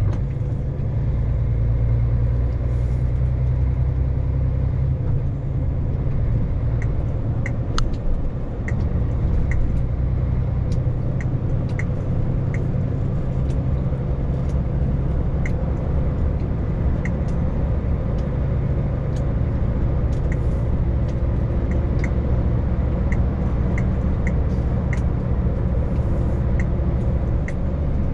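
Vehicle engine and road noise at a steady cruise, a continuous low rumble, with faint regular ticks from about a quarter of the way in.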